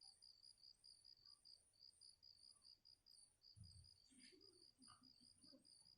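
Faint, steady high-pitched chirping of crickets, an even pulsed trill at about three pulses a second. Some soft low rustling and knocks come in about halfway through.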